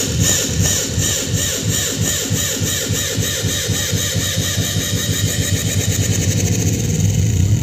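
Electronic dance music build-up: a fast pulsing beat that speeds up steadily like a drum roll, driving toward a drop.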